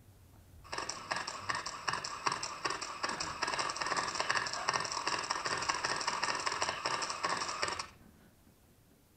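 A dense, rapid clattering, many clicks a second over a ringing, bright hiss, that starts abruptly about a second in and cuts off suddenly about seven seconds later.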